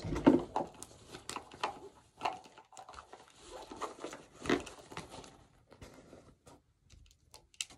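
Small items being handled and rummaged through: scattered clicks, knocks and rustles as a jar of hair gel and a small edge brush are picked up.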